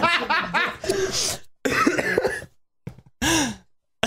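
Men laughing, the laughter dying down after about a second and a half into a few separate short breathy bursts with silent gaps between them.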